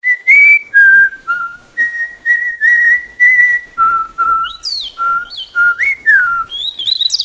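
AI-generated audio from the TangoFlux text-to-audio model: a person whistling a melody in short clear notes, joined about halfway through by birdsong chirps that grow louder near the end.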